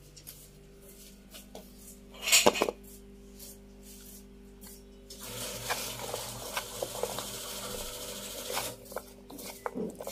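Hand mixing raw potato strips in a flour-and-spice coating on a ceramic plate: the strips rustle and click against the plate for about three seconds in the second half. A brief loud clatter about two seconds in.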